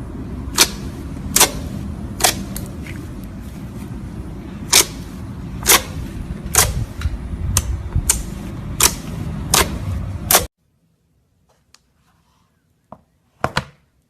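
Slime being pressed and poked, giving sharp popping clicks about once a second over a low rumble. The sound cuts off abruptly about ten seconds in, and a few softer clicks follow near the end.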